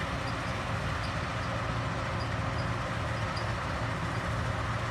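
Combine harvester running steadily in the wheat field: a constant low engine drone with mechanical noise over it.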